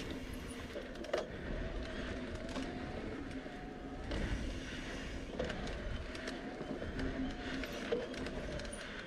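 Mountain bike rolling along a sandy dirt trail: steady tyre and riding noise with a faint wavering hum and scattered clicks and rattles over bumps.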